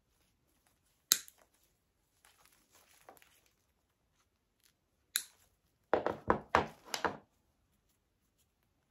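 Red-handled cutters snipping through artificial leaf stems: two sharp snips, about a second in and about five seconds in, with rustling of the plastic leaves between them. A quick run of knocks and crinkles follows about six seconds in.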